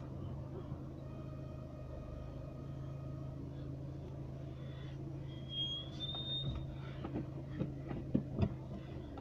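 Inside a car's cabin: the car's engine and road noise as a steady low hum while it creeps forward in slow traffic. About six seconds in there is a brief thin high squeak, followed by a few light knocks near the end.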